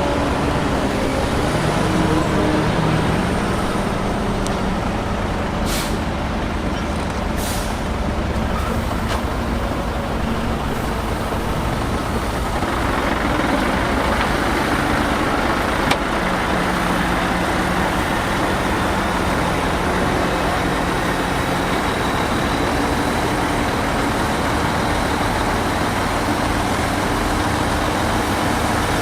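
Diesel engine of heavy earthmoving machinery running steadily under work, growing louder and harsher about twelve seconds in, with two short clicks about six and seven and a half seconds in.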